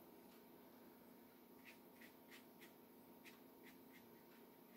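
Near silence: a watercolour brush dabbing and stroking on paper, a series of faint short scratches at irregular intervals, mostly in the second half, over a faint steady hum.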